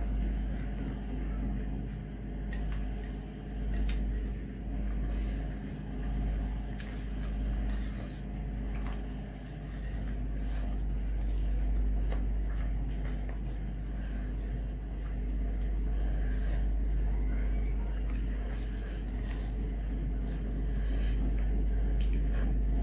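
Fingers squashing and mixing cooked rice with dal on a glass plate, with faint wet clicks. Under it runs a constant low rumble that swells and fades about once a second for the first half, then holds steady.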